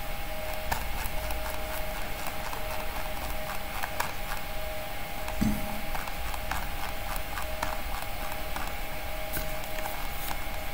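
Computer mouse scroll wheel clicking in quick, irregular runs as a long file is scrolled, over a steady electrical hum. A single dull thump about halfway through.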